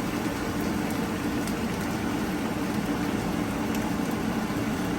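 A steady rushing noise with a low hum, and a few faint ticks.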